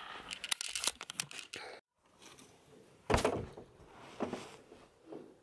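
Handling noise from a camera being tucked into a hiding place: rustling and quick clicks, a brief dropout, then a loud knock about three seconds in and a smaller knock a second later, with rustling between.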